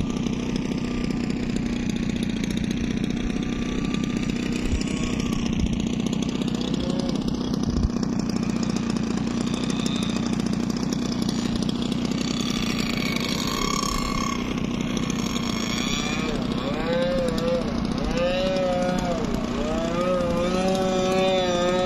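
Evolution .52 two-stroke glow engine of an RC fun-fly model airplane running in flight, its pitch gliding up and down as the plane manoeuvres; in the last few seconds the pitch swoops up and down in quick arcs.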